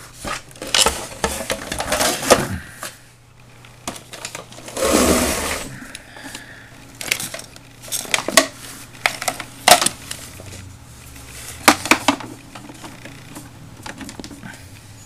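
Clatter and knocks of an LCD monitor and its power cord being handled and plugged in: irregular clicks and taps, with a louder rustling thump about five seconds in.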